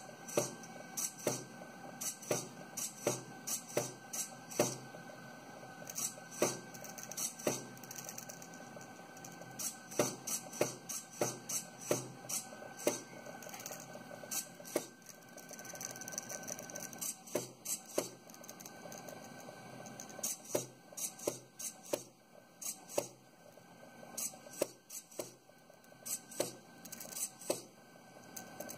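Eggbot pen plotter drawing on an egg: its stepper motors hum and whine as they turn the egg and swing the pen arm, with frequent sharp mechanical clicks and ticks.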